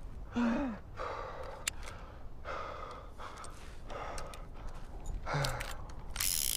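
A man breathing hard after a tense moment: short gasps and sighs, a brief falling gasp about half a second in and a low grunt near the end. A short metallic rattle comes right at the end as the revolver is handled.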